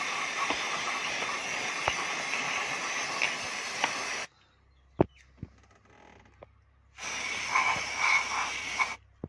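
Aerosol carburetor cleaner hissing out of a can's red extension straw in two bursts, about four seconds and then about two seconds long, with a few sharp clicks between them. It is being sprayed onto the distributor and into its cap to dissolve carbon build-up that weakens the ignition current.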